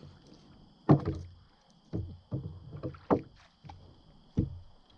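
Hollow knocks and bumps on a kayak's hull, about seven in all, the sharpest about a second in, as a landing net and a freshly caught small largemouth bass are handled in the boat.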